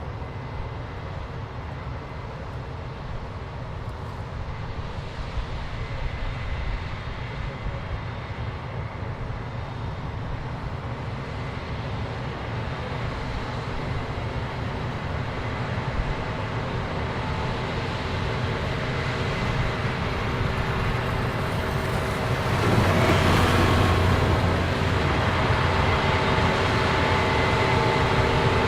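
Diesel engine of heavy harvesting machinery running steadily, growing louder through the stretch, with a sharper rise about three-quarters of the way through.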